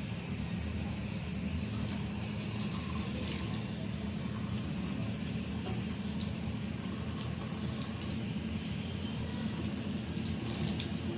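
Tap water running steadily into a sink as bleach is rinsed out of a wig.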